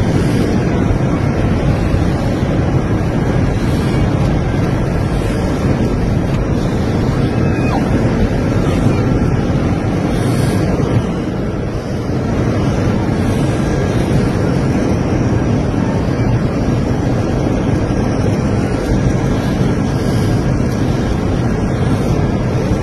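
Loud, steady roar of engines and rushing air inside an airliner cabin during an emergency descent after a loss of cabin pressure, easing briefly about halfway through.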